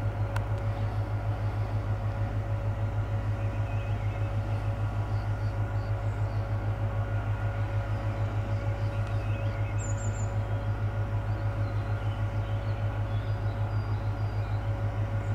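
Diesel shunting locomotive's engine running with a steady, evenly pulsing low throb and a faint steady whine above it.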